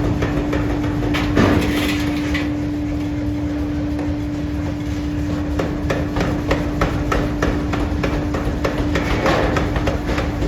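Forging-shop machinery running with a steady hum, under frequent irregular metal knocks and clanks, with a louder bang about a second and a half in.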